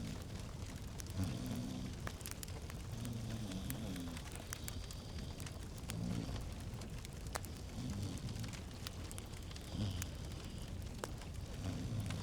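Wood fire burning in a fireplace, crackling with scattered sharp pops over a low steady rumble.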